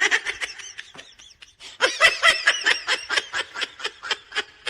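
Rapid, high-pitched laughter in short repeated bursts, about five a second, starting after a quieter first second and a half.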